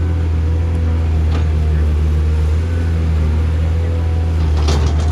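Heavy diesel construction machinery running with a steady low drone, with a brief clatter near the end.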